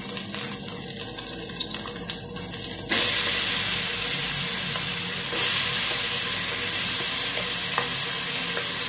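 Chopped onion dropped into hot cooking oil in a stainless steel pot, bursting into a loud sizzle about three seconds in. It swells louder again a couple of seconds later and keeps frying steadily.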